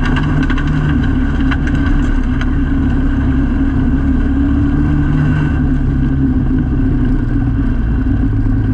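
Autograss race car's engine running at fairly steady revs, heard from inside the stripped-out cabin, with a few sharp clicks in the first couple of seconds.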